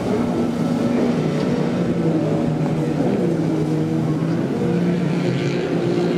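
Jet ski engines running at racing speed, several held engine tones shifting up and down in pitch.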